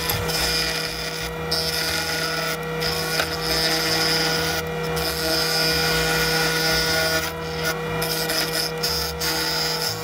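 Wood lathe running with a steady motor hum while a hand-held turning chisel cuts a spinning blank of soft Denim Pine. The rough cutting sound breaks off briefly several times as the tool comes off the wood.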